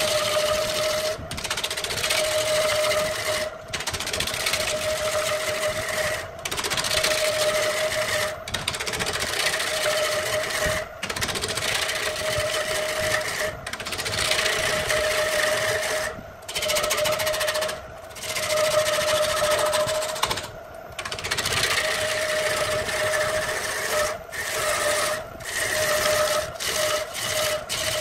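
Wood lathe turning a large wooden blank while a hand-held turning tool cuts into it: a continuous shaving hiss over a steady pitched whine. The cut breaks off briefly every two to three seconds as the tool comes off the wood between passes.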